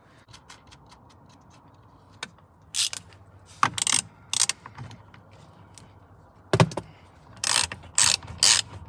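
Ratchet wrench clicking in several short bursts as the steering wheel's retaining nut is run down onto the steering column shaft.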